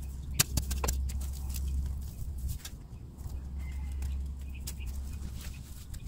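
Small hand spade digging and scraping in dry, weedy soil, with sharp scrapes about half a second and a second in and more scattered through the rest, over a low rumble that comes and goes.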